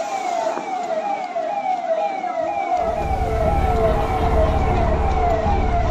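A vehicle siren sounding in quick falling sweeps, about two a second, with a low rumble coming in about three seconds in.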